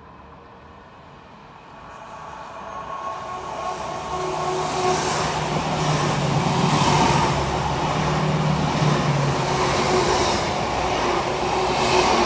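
A Class 74 (Stadler FLIRT) electric multiple unit approaching and running past close by. Its sound builds over the first four or five seconds, then holds steady as the carriages go by.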